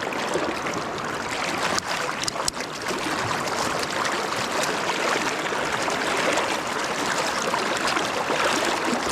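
River current rushing steadily around a wading angler, with a few sharp clicks or splashes about two seconds in.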